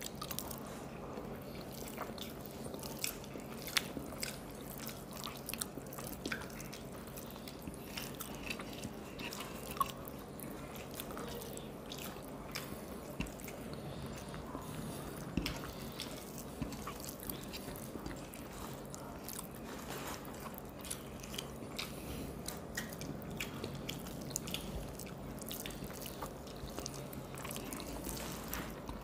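Close-up mouth sounds of two people eating rice and mashed potato by hand: soft chewing and lip smacks, with fingers squishing food on the plates. Many small scattered clicks over a faint steady hum.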